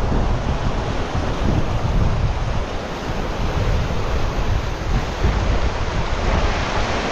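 Wind buffeting the microphone: a steady, uneven rush with a heavy low rumble.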